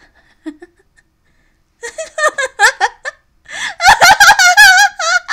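A single voice laughing: short rhythmic chuckles from about two seconds in, building into loud, drawn-out laughter near the end.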